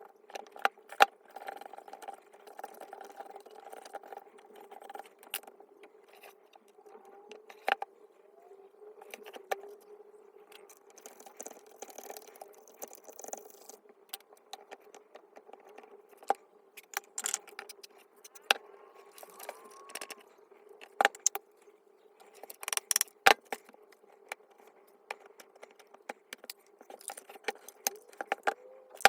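Irregular metallic clicks, clinks and knocks of tools and small parts being handled while a reciprocating saw is taken apart, over a faint steady hum.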